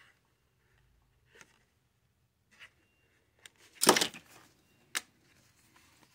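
A thin vinyl sheet being handled and pressed on a workbench: a few light clicks, then a sharp rustling scrape about four seconds in and a single click about a second later.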